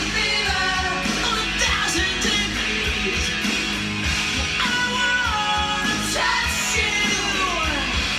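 Rock song with a sung vocal, playing from a vinyl record on a turntable.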